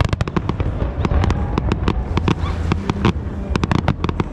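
Fireworks going off in a rapid, irregular run of sharp cracks and bangs, several a second, over a steady low rumble.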